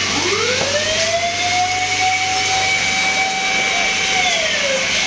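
Fire truck siren winding up to one long steady wail, then sliding down in pitch near the end.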